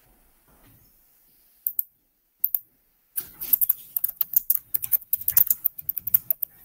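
Typing on a computer keyboard: two single key clicks about two seconds in, then rapid, continuous typing from about three seconds in.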